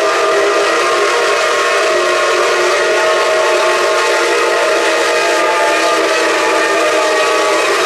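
Several steam whistles on coupled Shay and Climax geared steam locomotives blowing together, a dense chord of tones held steadily without a break.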